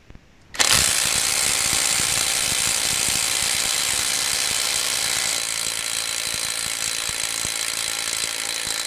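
Cordless 18 V impact wrenches hammering at car wheel lug nuts, breaking loose nuts torqued to 300 N·m. The rapid hammering starts suddenly about half a second in and goes on, dropping a little in level after about five seconds.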